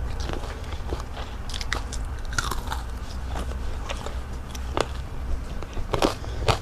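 Crunching bites and chewing of breaded fried calamari: irregular crisp crackles, with the sharpest crunches about six seconds in, over a low steady hum.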